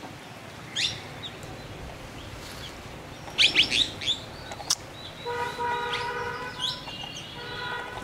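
Wild birds chirping: short, quick downward-sweeping calls about a second in and a louder burst of several near the middle. From about five seconds in, a steady pitched tone with overtones sounds on and off alongside them.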